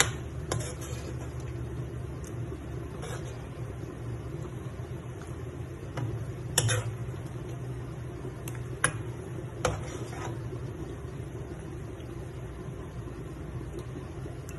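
A metal spoon scraping and clinking against a wok as pieces of chicken in sauce are scooped into a bowl, with a few sharp taps spread through. Under it runs a steady low hum.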